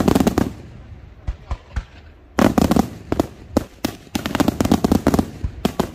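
Daytime aerial fireworks shells bursting. Dense clusters of rapid bangs and crackles come at the start, about halfway through and again late on, with single sharp reports between them.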